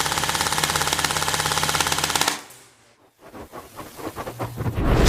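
Airsoft electric gun firing full-auto in one long, very fast and even burst that stops about two seconds in. After a brief hush, a run of clicks starts and quickens toward the end.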